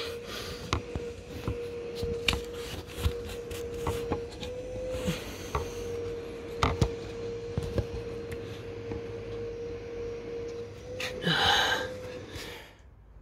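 Hand and forearm rubbing and knocking against plastic engine-bay trim and hoses while feeling for a part in a tight space, with scattered small clicks and a louder scrape about eleven seconds in. A steady hum runs underneath and stops near the end.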